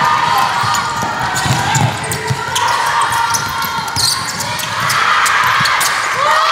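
Basketball game sound on an indoor hardwood court: the ball dribbling in repeated sharp bounces, with short sneaker squeaks and players' and spectators' voices echoing around the gym.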